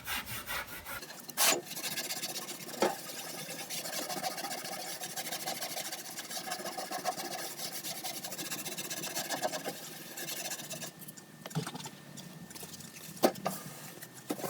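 Fine 0000 steel wool scrubbing surface rust off the painted steel lid of a toolbox with degreaser, a steady scratchy rubbing that stops about three-quarters of the way through. A couple of sharp clicks come near the start and another near the end.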